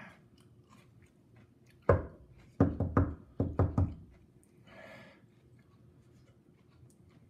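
A sharp knock about two seconds in, then a quick run of five more knocks over about a second and a half.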